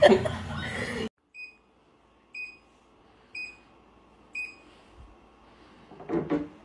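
Four short, even electronic beeps about a second apart from a walking treadmill's control console. Before them, laughter and speech cut off about a second in, and a brief vocal sound comes near the end.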